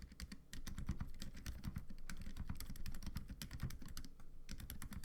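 Fast typing on a GamaKay LK75 mechanical keyboard fitted with Phoenix Silent linear switches: a quick, quiet stream of muted keystrokes, with a brief pause about four and a half seconds in.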